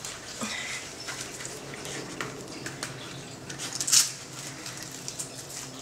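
Rustling and light clicks of a Ruffwear dog boot being handled and fitted onto a dog's paw, with a louder sharp scrape about four seconds in.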